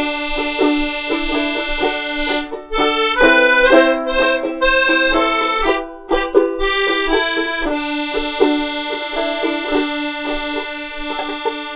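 Accordion holding sustained chords while a banjolele strums steadily underneath, playing a folk tune.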